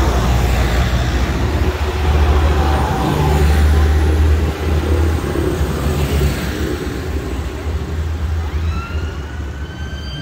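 Diesel tractors driving past close by, a heavy low engine rumble that swells as each one passes. Near the end a wailing siren starts up.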